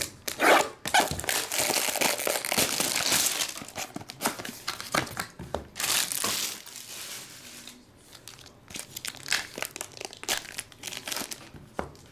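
Plastic wrapping being pulled and torn off a trading-card pack, crinkling densely for the first several seconds. Later comes lighter rustling with a few sharp clicks.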